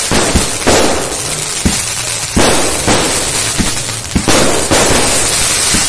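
A 200-shot 'night flower' sky-shot firework cake firing in quick succession. Sharp shot bursts come about every half second to a second, over a continuous dense crackling and sizzling from the bursting stars.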